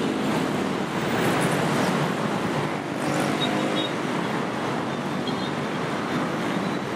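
Steady road traffic noise: cars and other vehicles running past on a busy road, an even rush with faint engine hum.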